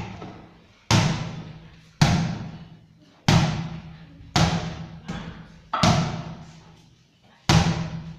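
Small hollow ball thudding as it is kicked and rebounds off the tiled floor and walls: seven sharp hits roughly a second apart, each ringing and echoing away in the bare room.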